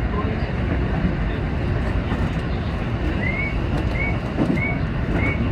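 Seibu 20000 series electric train running, a steady rumble of wheels on rail. From about three seconds in, a level crossing warning bell rings in short even strokes, about one and a half a second.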